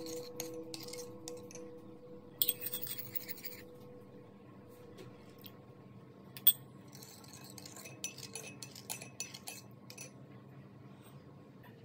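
Metal spoon stirring and clinking against a ceramic bowl of sauce, with a short clatter at about two and a half seconds. A single sharp clink about six and a half seconds in as cornstarch slurry is poured into the bowl, then more quick spoon clinks from the renewed stirring.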